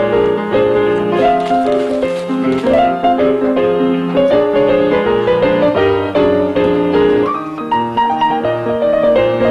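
Background music led by piano, a continuous run of changing notes.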